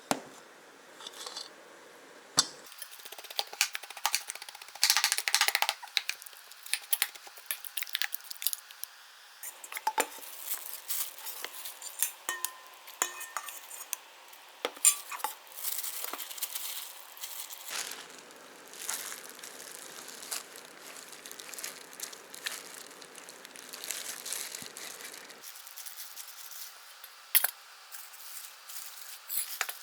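Kitchen clatter: utensils and dishes clinking and knocking against each other in irregular short strikes. In the second half a steady hiss runs for several seconds.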